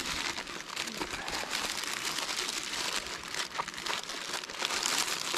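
Crinkly plastic wrapping crackling steadily as a packet of fudge is opened and handled.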